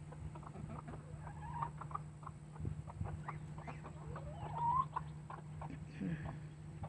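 Hens clucking contentedly: many short clucks from a small flock, with one call rising in pitch about four seconds in. A steady low hum runs underneath.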